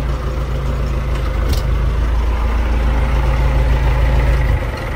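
MTZ tractor's diesel engine idling, heard from inside the cab, then shut off near the end. A single sharp click about a second and a half in.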